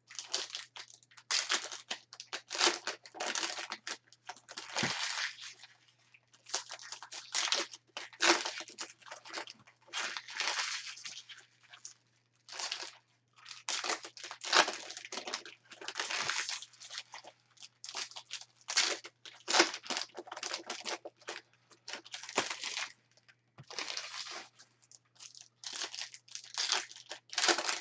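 Trading-card packs being opened by hand: wrappers crinkling and tearing, with cards rustling as they are sorted, in irregular bursts.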